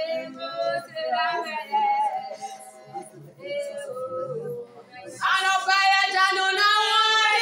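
Singing voices carrying a wavering melody. About five seconds in, a louder, high-pitched voice comes in and holds long notes.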